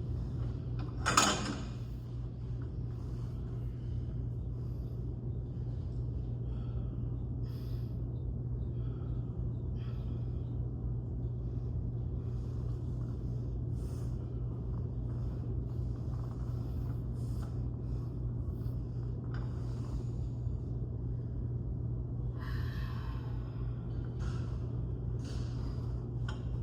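Steady low hum of background room noise, with one short, loud burst of noise about a second in and scattered faint clicks and rustles.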